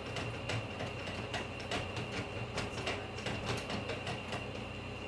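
Doorknob and door rattling, with irregular clicks and knocks, as a cat paws and pulls at the knob trying to open it. A steady low hum and a faint high whine run underneath.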